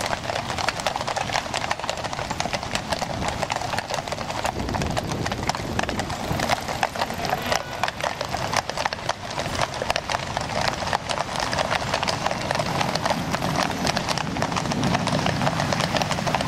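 A column of shod horses walking on a paved road: a dense, irregular clip-clop of many hooves.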